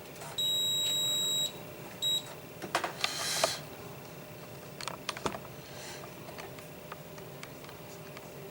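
Digital multimeter's continuity beeper: one steady high beep about a second long, then a short second beep, as the probes make contact between a ground point and the black wire, showing continuity. Scattered clicks of the probes and handling follow.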